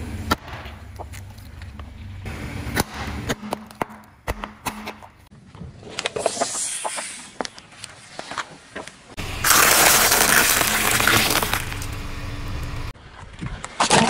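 Car tyre rolling over and crushing objects, a juice carton and then a row of balloons: a run of sharp cracks and crunches, with a loud rushing noise lasting about three seconds past the middle.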